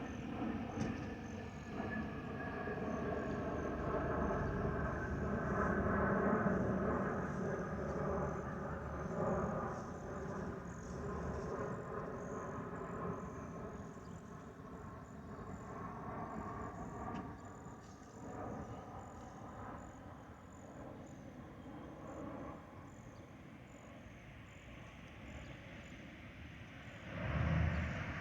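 Airbus A321-211's CFM56 jet engines heard passing by, loudest a few seconds in, then slowly fading away into the distance.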